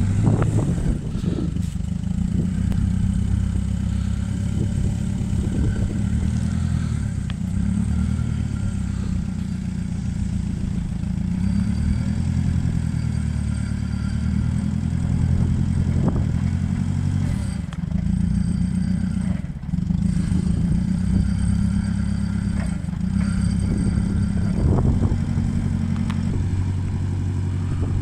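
Engine of a 1986 Datsun C3500 LP-gas forklift running as the truck drives and manoeuvres, its pitch rising and falling with the throttle. A few brief knocks from the machine come through.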